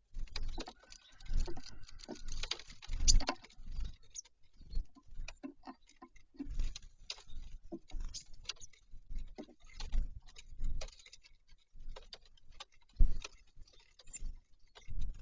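Birds feeding at a bird feeder: irregular pecking taps, clicks and soft knocks, with a few louder thumps, one about three seconds in and one near the end.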